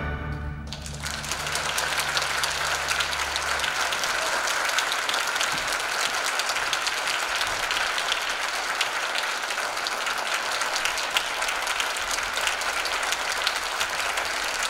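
Audience applauding steadily, starting about a second in, while the low notes of the orchestra's final chord fade out over the first few seconds.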